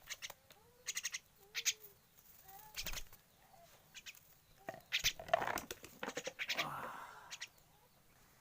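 Javan myna bathing: repeated short bursts of wing-flapping and splashing in water, busiest in the second half.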